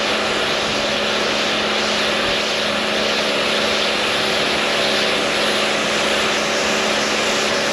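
Pressure washer running steadily, a motor hum under the hiss of its water jet spraying the deck to rinse off soap.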